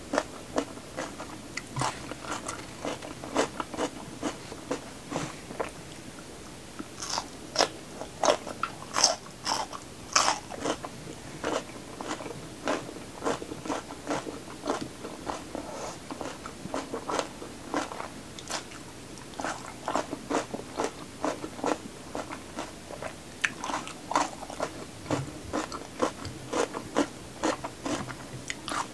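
Close-miked chewing of crisp raw red bell pepper: a steady run of wet crunches and mouth clicks, loudest and crispest about seven to ten seconds in.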